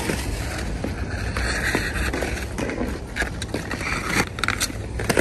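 Hockey skate blades scraping and cutting across rink ice in a run of short strokes and stops.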